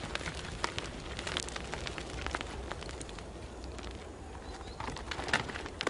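Irregular light clicks and taps of ibex hooves and small stones on rock, scattered through a faint steady outdoor background, with a few louder taps near the end.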